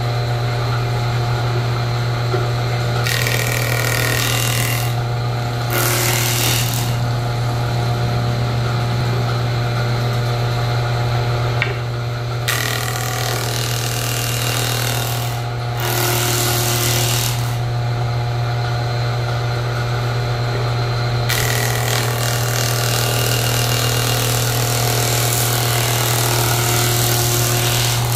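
Large wood jointer-planer running with a steady hum while a wooden beam is fed across its cutterhead in about five passes, each pass adding a loud cutting noise that stops as the board clears; the longest pass comes near the end. The cuts are test passes on freshly installed planer knives.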